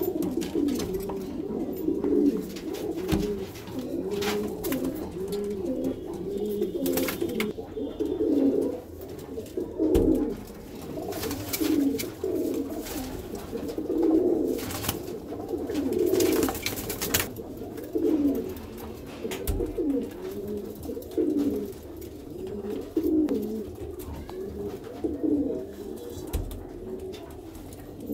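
A loft full of Madrasi domestic pigeons cooing continuously, many birds overlapping in low rolling coos. A few brief knocks come through now and then.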